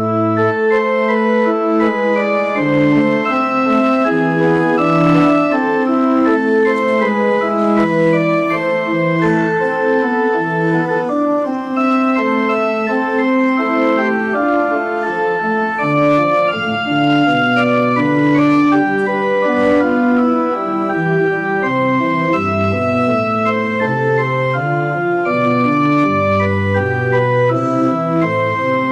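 Organ playing a piece of held chords over a moving bass line: the closing voluntary after the final blessing.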